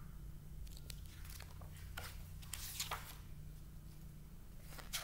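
Soft rustling and scraping of a paperback picture book being handled and opened, its cover and pages brushing against each other in a few short strokes, over a low steady hum.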